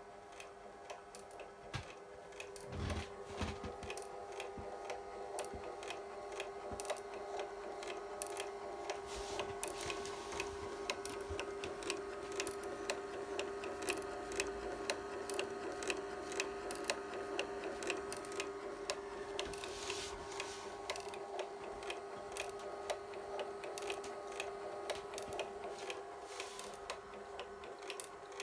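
Magnasonic FS81 film scanner running, its motor humming steadily while the frame-advance mechanism clicks regularly as it steps the film through frame by frame. A low thump about three seconds in.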